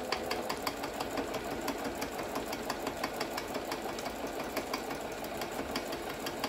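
Singer 7466 electronic sewing machine stitching steadily at speed, a rapid, even ticking of the needle over the motor's hum. It is a test sew on a machine whose seized needle bar has just been freed, and it is running normally.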